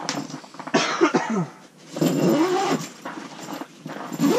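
An animal's voice: loud calls that glide up and down in pitch, in three bouts about a second long, the last near the end.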